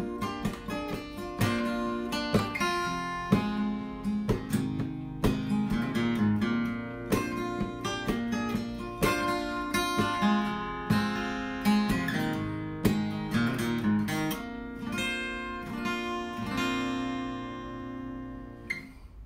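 Background music of acoustic guitar, plucked and strummed notes, ending on a chord that rings and fades out near the end.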